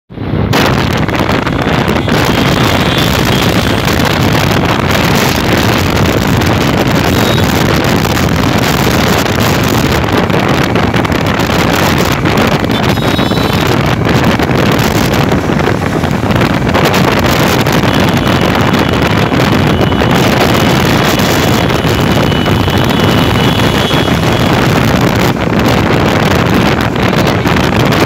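Loud, steady wind rush on the microphone of a Hero Glamour motorcycle ridden flat out at about 100 km/h, with the bike's engine running under it.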